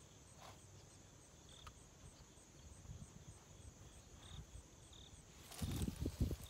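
Crickets trilling steadily in a quiet chorus, with a few short higher chirps. Near the end comes a brief loud whoosh and rustle as a spinning fishing rod is swung into a cast.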